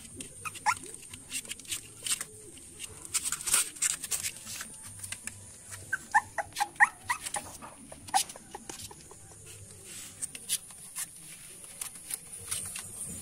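Very young puppies whimpering and squeaking in short high cries, most of them about six to seven seconds in, while their paws scrabble on cardboard with many small scratching clicks.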